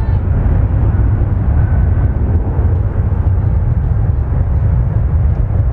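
Boeing 737-900's CFM56-7B jet engines running as the airliner moves along the runway: a steady, heavy rumble.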